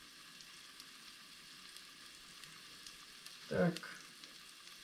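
Breaded mushroom caps sizzling quietly in hot oil, a steady faint hiss. About three and a half seconds in there is one short, louder sound.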